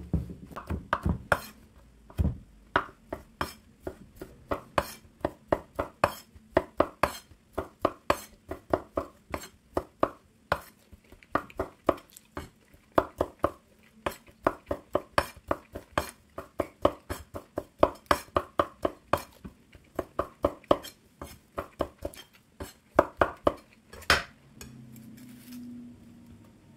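Chef's knife chopping cooked shrimp on a wooden cutting board: a long, even run of sharp knocks of the blade on the board, about three a second, that stops near the end.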